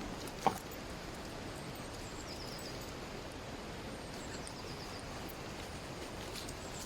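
Steady rush of flowing water from a nearby stream or waterfall, with one sharp click about half a second in and a few faint high bird chirps.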